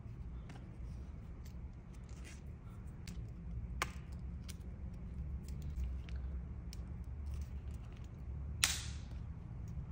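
Hard plastic snaps and small clicks as the hinged arms of a 3D-printed foldable clothes hanger are swung and locked into place by hand, with two sharp snaps about four seconds in and near the end. A low steady hum runs underneath.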